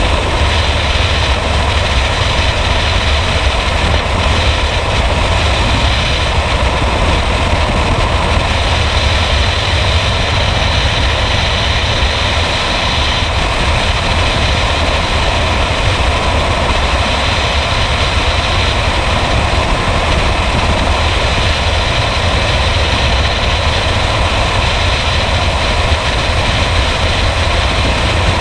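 Freefall wind rushing past a helmet-mounted camera's microphone: a steady, loud buffeting with a heavy low rumble under a broad hiss.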